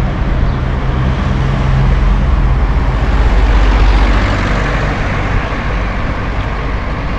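Wind and road noise on a bicycle-mounted camera while riding, with a car passing close alongside, loudest about four seconds in.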